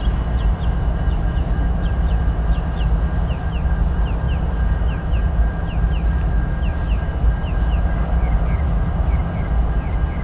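A consist of BNSF diesel locomotives rumbling low and steady as it moves slowly through a rail yard. A faint steady whine sits above it, with short high chirps repeating about twice a second.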